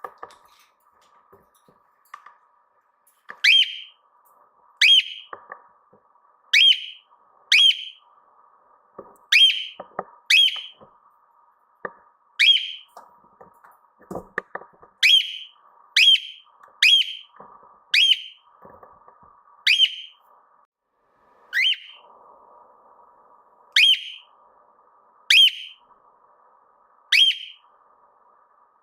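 Cockatiel giving a series of short, shrill whistled calls, each dropping sharply in pitch, one every one to two seconds after a few seconds' pause. A faint steady hum runs underneath.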